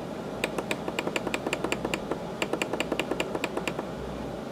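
Roland FA-06 synthesizer's front-panel controls clicked in quick succession to scroll through the tone-edit parameter list: two runs of sharp clicks, about seven a second, with a short pause between them.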